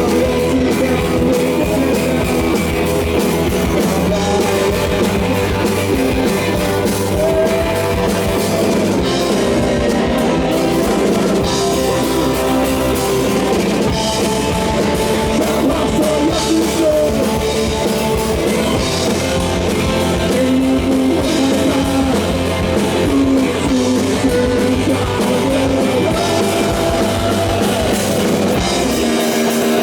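Rock band playing a song: electric guitar and drum kit at a steady loud level, with a sung vocal line.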